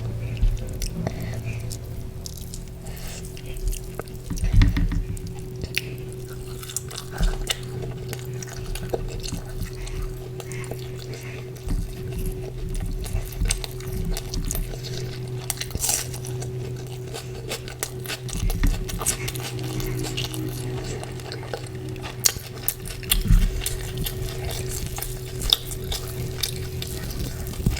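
Close-miked eating sounds: wet chewing and mouth smacks of someone eating chicken curry with porota by hand, as irregular soft clicks and squelches, over a steady low hum.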